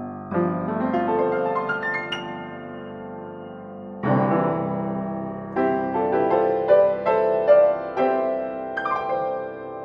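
A Steinway model 1098 studio upright piano being played: a phrase of chords and melody, a large chord about four seconds in left to ring and fade, then further phrases that die away near the end.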